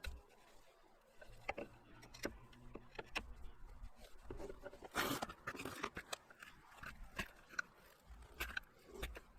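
Hand blade scraping and shaving a wooden axe handle in irregular strokes, with scattered clicks and knocks. The loudest, longest scrape comes about five seconds in.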